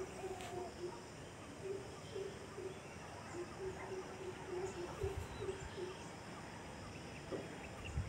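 A bird calling a long run of short, low notes at one steady pitch, with a few faint higher chirps behind it.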